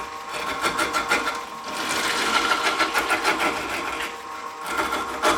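Wood lathe running at speed while a carbide turning tool cuts into a spinning pineapple, a rapid chattering rattle over a steady motor whine.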